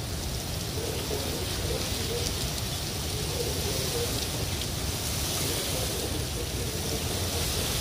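Heavy squall rain falling steadily as an even hiss, which thickens right at the start, over a low rumble.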